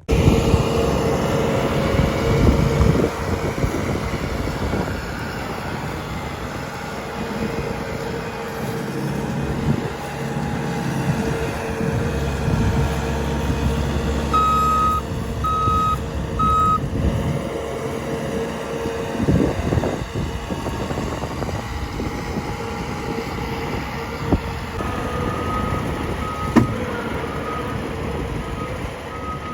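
Heavy diesel machinery running with a steady drone. About halfway through, a backup alarm beeps three times, and fainter backup beeps repeat near the end.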